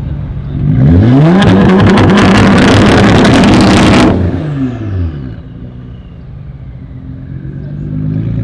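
Tuned Nissan GT-R R35's twin-turbo 3.8-litre V6 with a full Boostlogic exhaust, revved hard about a second in and held high for about three seconds with a rapid crackle of exhaust pops. It then falls back to a steady idle, with a lighter blip of the throttle near the end.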